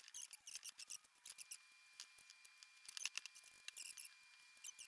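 Faint scratchy crackling and rustling of hands pressing and smoothing a freshly glued strip of carpet onto a seat frame beside a coconut-fibre pad, in quick irregular scratches with a busier spell about three seconds in.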